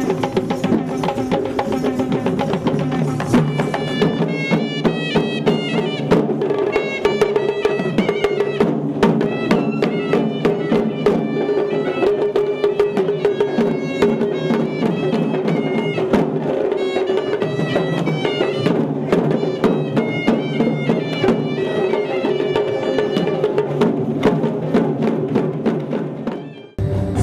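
Traditional Sri Lankan procession music: fast drum strokes over a steady droning wind instrument, with quick bright strokes joining after about four seconds. It stops abruptly near the end.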